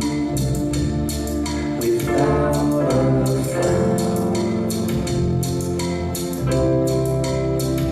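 Band music: held chords that change every second or so over a steady drum beat with regular cymbal hits.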